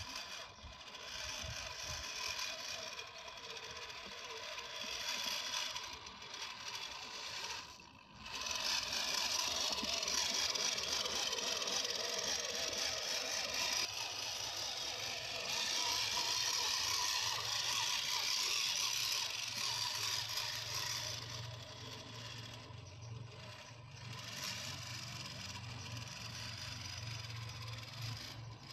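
Homemade 4x4 RC crawler driving on an off-road track: its small motor and gear drivetrain running with a mechanical rattle, the level swelling and easing as it goes, with a brief drop-out about eight seconds in and a low hum joining midway.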